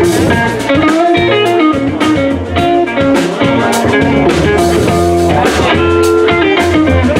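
Live small swing band playing: red hollow-body electric guitar over upright bass, with drums keeping time.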